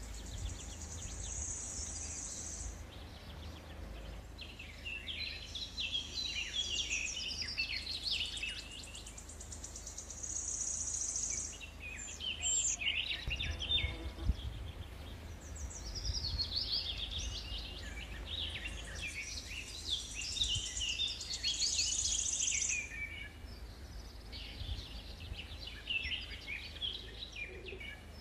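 Several small songbirds singing and chirping, their phrases overlapping, with a high, thin, fast trill that comes and goes in stretches of a few seconds, over a low rumble.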